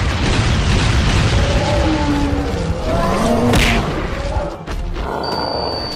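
Cartoon fight sound effects: heavy booming and rumbling as of an explosion throwing up rocks, with music underneath.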